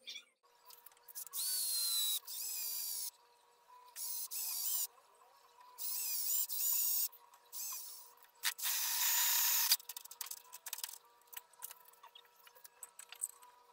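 Electric drill running in four short bursts, its bit drilling into a workpiece clamped in a bench vise. Each burst is a high whine that stops abruptly.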